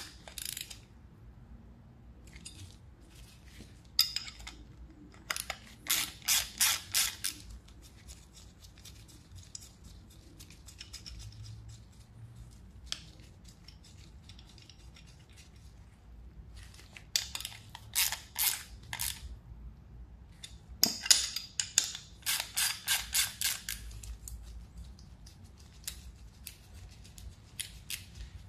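Ratchet wrench clicking in several short runs of quick strokes, a few strokes a second, as the split sprocket's bolts are worked on.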